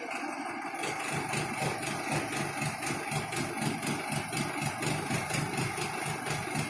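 Heavy engine idling with an even, rapid throb that sets in about a second in.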